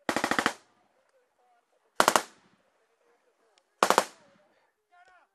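Three short bursts of automatic gunfire, close and sharp: one at the start, one about two seconds in and one about four seconds in.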